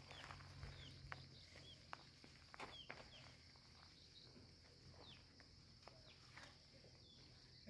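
Faint rural outdoor ambience: a steady high insect drone under short, downward-sliding bird chirps that recur every second or so, with a few soft clicks.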